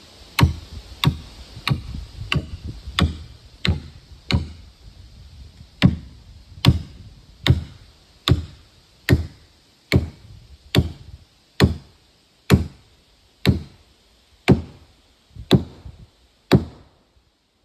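Hammer blows on wood, about twenty in all: a quick run of seven at about one and a half a second, a short pause, then a steadier run slowing to about one blow a second.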